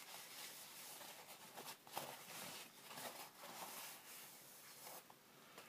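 Faint rustling and soft crinkling of paper kitchen roll being unwrapped by hand, with a few light ticks.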